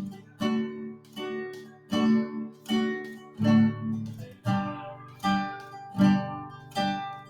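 Acoustic guitar playing a song's instrumental introduction: chords struck about every three-quarters of a second, each ringing and fading away.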